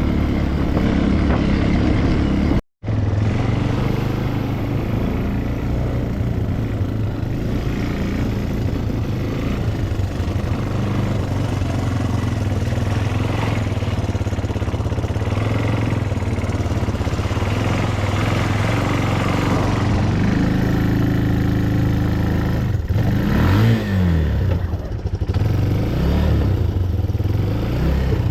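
ATV engine running steadily while being ridden, with the revs rising and falling several times near the end. The sound drops out completely for a moment about three seconds in.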